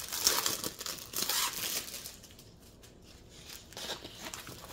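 Clear plastic sleeve crinkling and rustling as a rolled diamond painting canvas is handled and slid out of it, going quieter for a second or two in the middle before the rustling picks up again.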